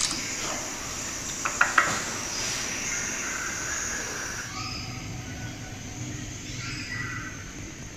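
Ambience full of short animal chirps and whistles, with a few sharp clicks about a second and a half in.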